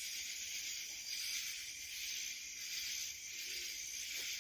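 A steady, high-pitched chorus of insects trilling, with a slight pulsing.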